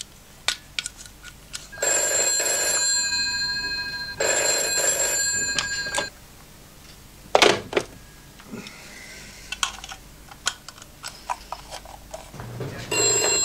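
Telephone bell ringing in two long bursts, followed by a single sharp knock and faint scattered ticks; the ringing starts again near the end.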